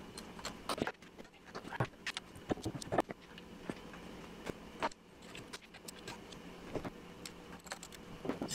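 Irregular metal clicks, clinks and small knocks of hand tools and parts as a steel ironworker machine is reassembled by hand, over a faint steady hum.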